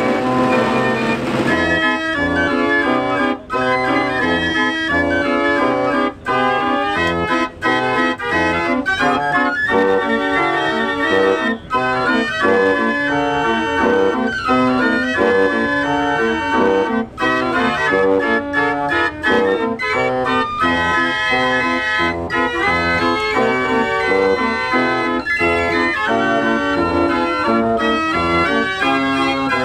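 49-key Marenghi fair organ playing a tune: a held chord gives way, about a second and a half in, to a busy melody over full chords and a pulsing bass, with a few momentary breaks between phrases.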